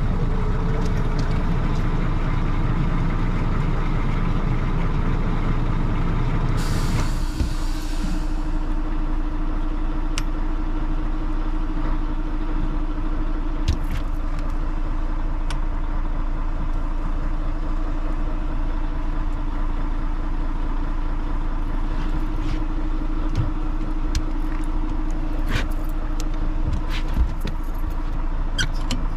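Rosenbauer airport fire truck running steadily, heard from its roof by the turret. About seven seconds in comes a short hiss, after which a steady hum tone holds, with a few light clicks later on.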